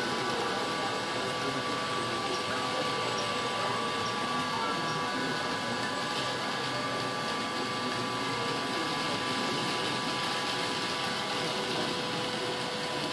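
Steady mechanical whir of the small electric motors running a miniature HO-scale layout's model fairground rides, with several steady humming tones held throughout.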